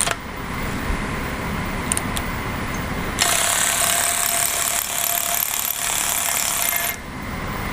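Power tool, an impact wrench, running in one burst of about four seconds from about three seconds in, on a stuck 21 mm oil pressure switch. A steady garage hum sits under it.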